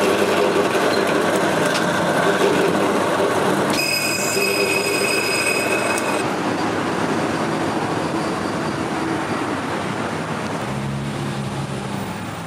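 Bench drill press running, its bit drilling through a steel knife blank cut from a motorcycle sprocket, with a high-pitched squeal from the bit for about two seconds near the middle.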